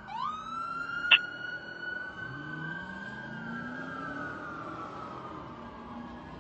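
Fire engine siren switching from a fast yelp to a single wail that climbs quickly, then slowly winds down in pitch over several seconds. Underneath, the truck's engine pulls up through its revs, and a sharp, very brief burst sounds about a second in.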